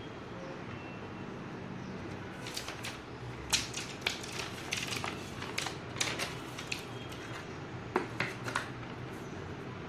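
Hands rummaging through a cardboard box of packaged items, plastic wrapping and cards clicking and crinkling. The sharp clicks and rustles come in an irregular run from a couple of seconds in until shortly before the end, over a steady low rumble.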